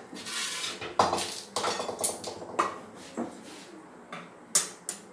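Metal kitchenware clattering: a stainless steel kadai and utensils being handled and set down on a gas stove's grate, a string of sharp clanks with the loudest about four and a half seconds in.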